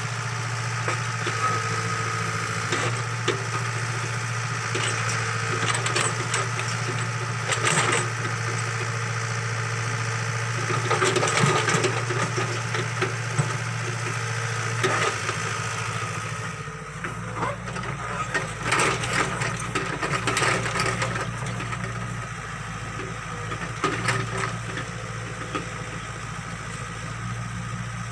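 Excavator's diesel engine running steadily under working load while it digs, with scattered knocks and scraping from the bucket working soil. The engine note shifts a little past halfway through.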